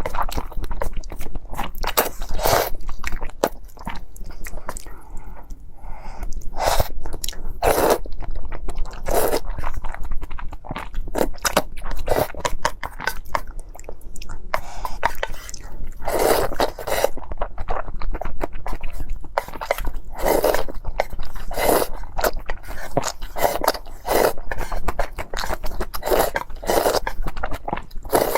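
Close-miked eating: repeated crunchy bites and chewing, one crackling crunch every second or so.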